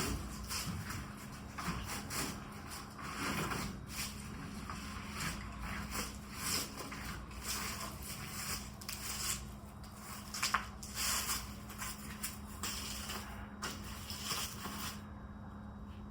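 Irregular scraping and rustling strokes as soybean straw, beans and dirt are cleared off a combine's flex header, over a steady low hum. The strokes stop shortly before the end.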